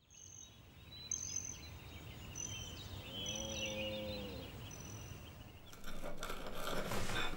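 Farmland ambience: a bird's short high chirps repeating every second or so, and a cow mooing once about three seconds in, for about a second and a half. Near the end, cutlery clicks against a plate.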